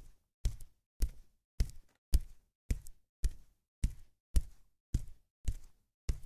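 Footstep sound effect: a steady walk of just under two steps a second, each step a short knock with silence between.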